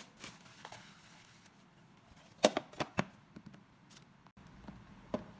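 A cluster of about four sharp clicks and knocks of kitchenware being handled, about two and a half seconds in, with a few fainter taps after and one more near the end.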